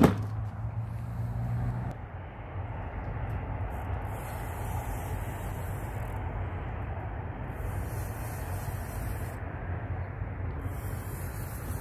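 A single sharp knock, then a steady low mechanical hum with a hiss over it. The hum eases a little about two seconds in.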